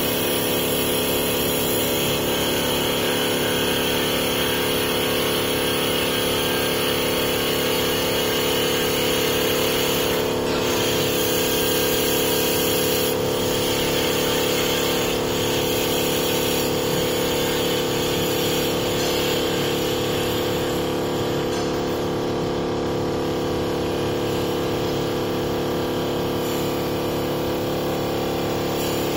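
Small automatic-feed CNC wood-turning lathe running, its spinning bristle sanding brush wheel sanding a turned wooden workpiece. It makes a steady machine hum of several held tones under an even hiss.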